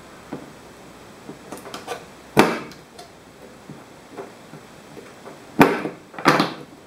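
Spring-loaded punch-down tool snapping down three times, seating CAT6 wires into the insulation-displacement slots of a network jack. Each snap is sharp with a brief ring: one a little over two seconds in, then two close together near the end, with a few softer clicks of wire handling before the first.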